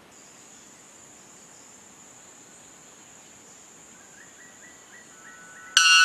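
White bellbird's Type 2 song: a sudden, extremely loud call with a rich ringing tone bursts in just before the end. It comes over a steady thin high whine and a faint run of short repeated notes in the second before it.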